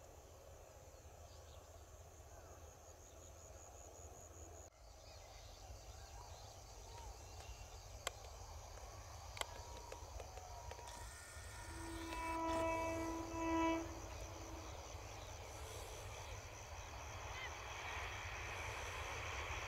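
An EMU electric local train approaching: a single horn blast of about two seconds about two thirds of the way through, the loudest sound here, over faint running noise that grows steadily louder toward the end as the train nears.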